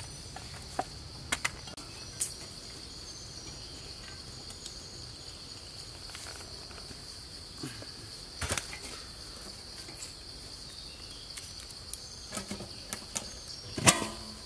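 Insects buzzing in a steady high drone, with scattered light knocks and clicks. The loudest, near the end, is a metal clank as an aluminium pot lid is set down on the pot.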